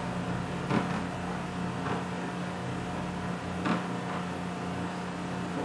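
Steady low electrical hum of room tone, with three faint short taps spread through it.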